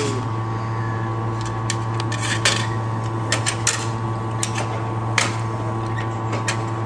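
Railway ground frame levers being worked by hand: a series of sharp metallic clicks and clanks from the lever catches and rods, spread irregularly, over a steady low hum.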